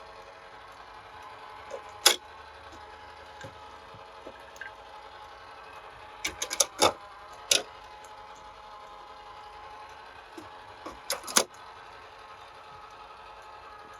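Sharp plastic clicks and clacks of toy cars and track pieces being handled, over a steady faint hum. There is one click about two seconds in, a quick cluster between six and eight seconds, and a few more around eleven seconds.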